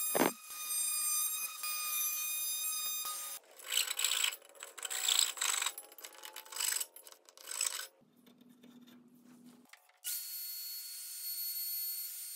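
An electric domino joiner whines steadily, with a thump right at the start. Then a hand rasp scrapes across wood in several separate strokes. After a short quiet gap a plunge router starts and runs with a steady whine.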